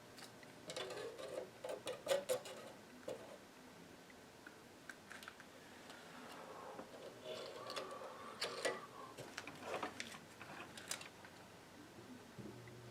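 Irregular light clicks and taps of tools and small parts being handled on a workbench, in two busy spells with quieter handling between.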